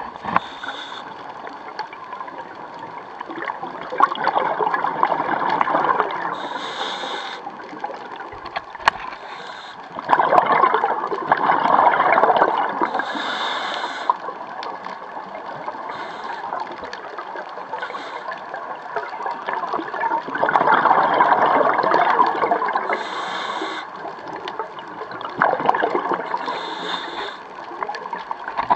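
Scuba diver breathing through a regulator, heard underwater. A short hiss of each inhalation alternates with a longer rush of exhaled bubbles, about four breaths in all.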